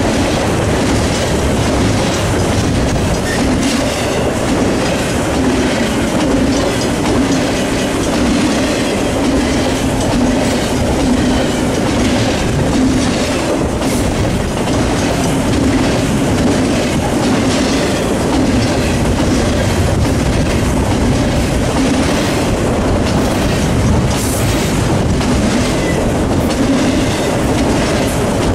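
Double-stack container well cars of a freight train rolling past close by, a steady loud rumble of wheels on rail with irregular clickety-clack over the joints. About four-fifths of the way through there is a brief high-pitched wheel squeal.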